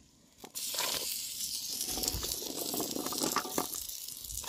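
Wood fire burning under a steaming pot of water: a steady hiss with scattered crackles, starting about half a second in.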